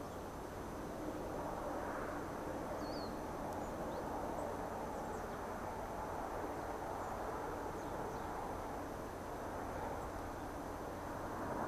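Distant DD51 diesel locomotive engine rumbling steadily, the sound carrying across the valley after the freight train has passed out of sight, with a few faint bird chirps.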